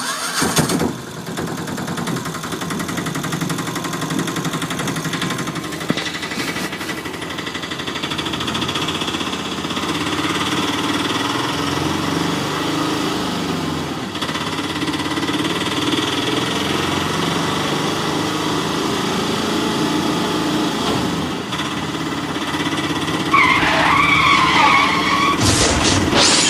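Auto-rickshaw engine running steadily. Near the end comes a wavering high tone, then a brief loud clatter.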